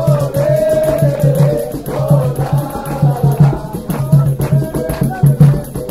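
Live samba band playing: a steady low drum beat and busy rattle-type percussion, with a melody line gliding over it.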